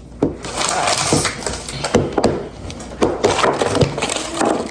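Hands handling and opening a plastic toy package: a run of irregular knocks and clicks over rustling.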